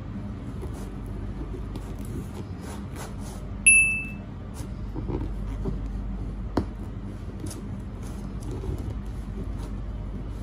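Serrated bread knife sawing back and forth through the hard crust of a sourdough loaf, in repeated scratchy, crackling strokes over a steady low hum. A short bright ding rings out about a third of the way in, and a sharp click comes a little past halfway.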